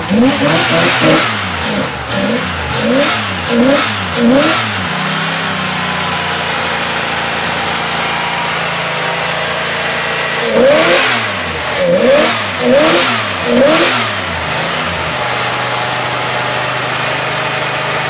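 Cadillac 4.9 L V8 engine revved in two runs of quick throttle blips, each settling back to a steady idle.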